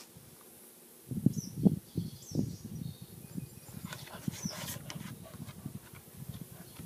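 Small birds chirping now and then in short falling notes, over irregular low thumps and rustling that are loudest a second or two in.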